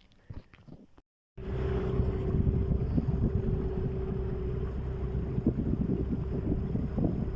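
A boat motor running steadily, a low rumble with a steady hum above it and wind buffeting the microphone. It starts abruptly about a second in, after a short quiet stretch with a few faint clicks.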